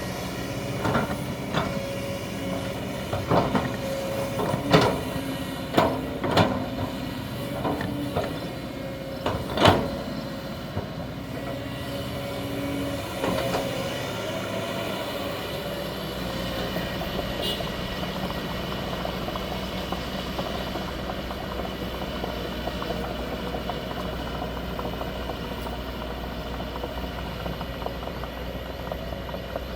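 Excavator's diesel engine running steadily, with a string of sharp knocks and clanks during the first ten seconds or so. After that the engine runs on evenly.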